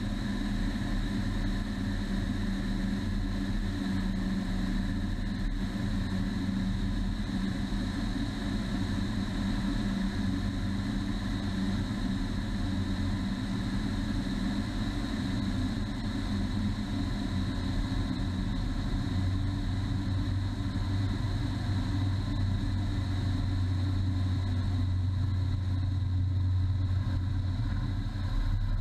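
Aeronca floatplane's piston engine and propeller running steadily in flight, a continuous drone heard from outside the cabin. Its note changes slightly and grows a little louder about two-thirds of the way through.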